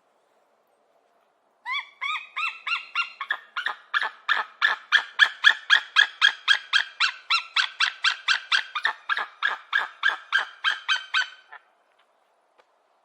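An eagle calling: a long run of short, high piping notes, about four or five a second, starting after a second or two of silence and stopping a little before the end.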